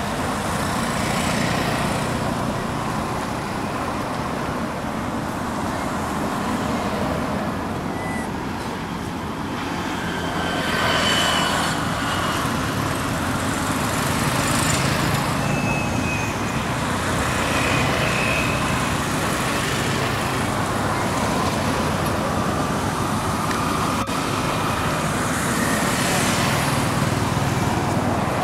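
Steady road traffic noise, with passing vehicles swelling louder about eleven seconds in and again near the end.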